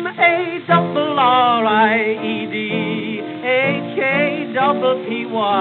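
Male voices singing a ragtime duet in held, wavering notes with heavy vibrato over an instrumental accompaniment. This is a 1912 acoustic-era gramophone recording, with a narrow, thin sound that has no deep bass and no top end.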